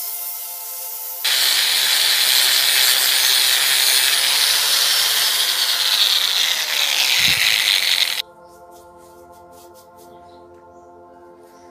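Handheld angle grinder running against a bicycle frame, a loud steady hiss of abrasive on the tube as it strips old paint. It cuts in about a second in and stops abruptly after about seven seconds. Background music plays before and after.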